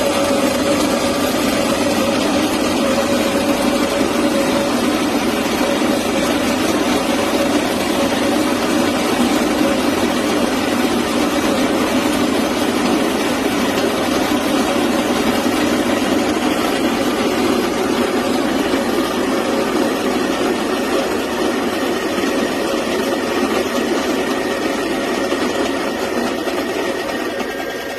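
Baratza Encore conical burr coffee grinder's motor running steadily, a continuous whirring hum with a steady tone.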